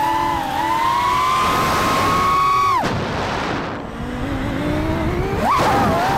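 FPV quadcopter's brushless motors whining with the throttle, over rushing air. The pitch climbs and holds high, drops steeply about halfway through as the throttle is cut, stays low, then shoots up in a sharp punch near the end.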